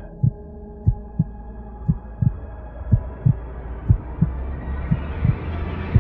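Heartbeat sound effect: paired low thumps, lub-dub, about once a second over a steady low drone, with a hiss swelling up through the second half.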